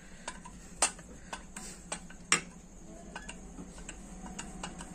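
Small metallic clicks and ticks from hand tools working on a motorcycle engine crankcase, with two sharper metal knocks about a second and two and a half seconds in, as the crankshaft bearing is drawn into its seat. A low hum runs underneath.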